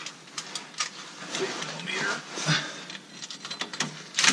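Scattered clicks and light metal taps as a socket on a cordless impact wrench is set onto a bolt of the Jeep Wrangler's transfer case output yoke, before the wrench runs. A faint, short vocal sound comes about a second and a half to two and a half seconds in.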